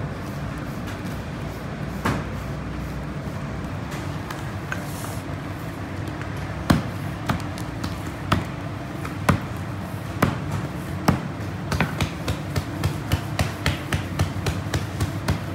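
Soft taps and thumps of hands and a wooden stamp pressing patir flatbread dough onto a board. They come about once a second, then quicken to two or three a second near the end, over a steady low hum.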